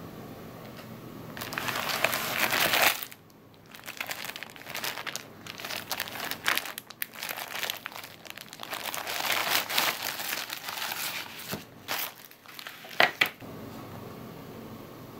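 A clear plastic wrapper crinkles and printed card sheets rustle as they are handled and unpacked, in uneven bursts. Two sharp clicks come near the end.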